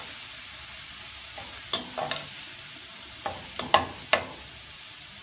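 Grated garlic sizzling in hot oil in a wok, fried lightly rather than browned, with a steady hiss. A metal spatula stirs it, scraping and clicking against the pan several times, the loudest strokes around four seconds in.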